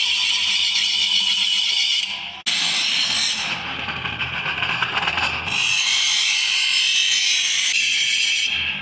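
A hand tool or small power tool abrading metal, a steady rasping hiss that breaks off abruptly about two and a half seconds in and then resumes.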